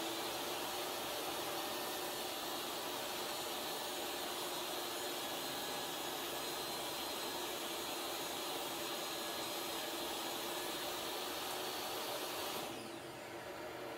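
DeWalt jobsite table saw running at full speed with a steady high motor whine while a board on a crosscut sled is pushed through the blade for a shallow flattening pass. The saw is switched off near the end and its pitch falls as it winds down.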